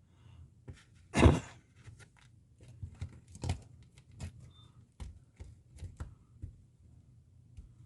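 Scattered small clicks and knocks of hands handling things on a model railroad layout, with one louder knock about a second in.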